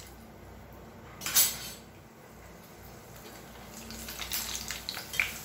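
Sago and beetroot vadagam frying in hot oil in a small iron kadai, bubbling and crackling, the crackle growing busier from about four seconds in. A brief louder burst about a second in.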